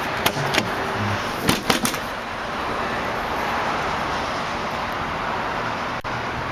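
Tailgate latch of a 2003 Chevrolet Avalanche clicking twice as the handle is pulled, then a few sharp clunks about a second and a half in as the tailgate drops open.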